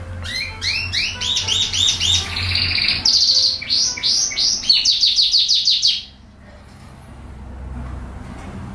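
Domestic canary singing: fast trills of short repeated notes that switch to a new note pattern every second or so, then cut off suddenly about six seconds in.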